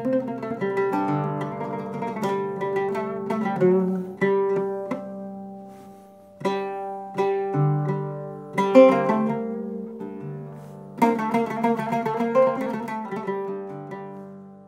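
Solo oud played with a pick, a slow melodic phrase of single plucked notes that ring and die away. It thins out twice, about five and ten seconds in, before firmer strokes start the next phrase.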